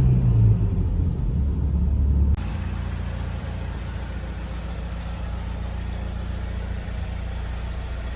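BMW E46 316ti four-cylinder Valvetronic engine with its revs falling as the car slows. About two seconds in there is an abrupt cut to the engine idling steadily and evenly.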